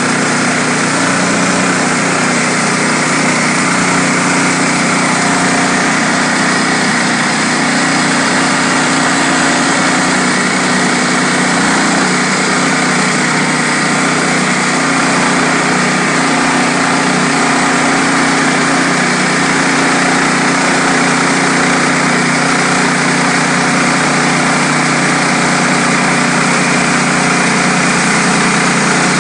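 Woodland Mills HM126 portable bandsaw sawmill running steadily, its small gasoline engine keeping an even pitch while the band blade runs through a black walnut log.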